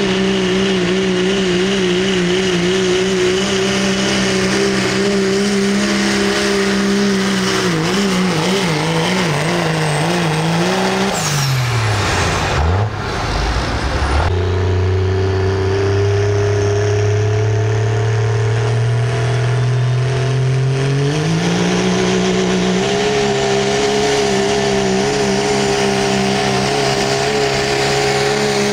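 Diesel pulling pickups at full throttle hauling a pulling sled. The first engine holds a high, steady note, wavers up and down, then winds down as its pull ends; after a break, a second diesel runs low and then climbs to a high, steady full-throttle note for the start of its pull.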